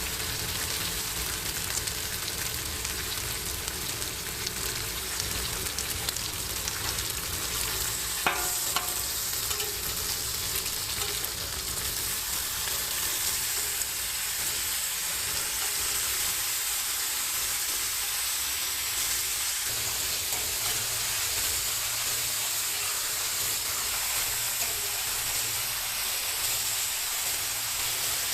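Food frying with a steady sizzle, with one sharp metallic clink about eight seconds in.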